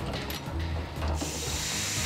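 Steady hiss of compressed air from a pneumatic piston-assembly machine, coming in about a second in, over a low steady hum and a few faint clicks.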